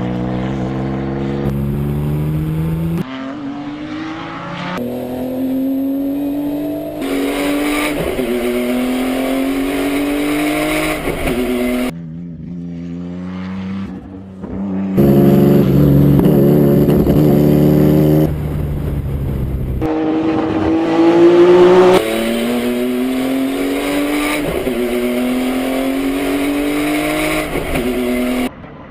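Nissan Skyline GT-R R32 race car's RB26DETT 2.6-litre twin-turbo straight-six accelerating hard, its pitch rising through each gear and dropping at each upshift. The sound jumps abruptly in level and tone several times as short clips change.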